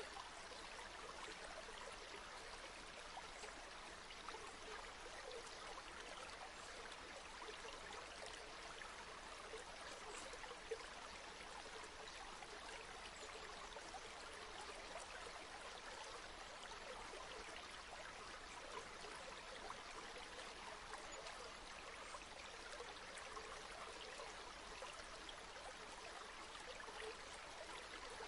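A river flowing steadily, a soft, even rush of water with no other events apart from one faint click about eleven seconds in.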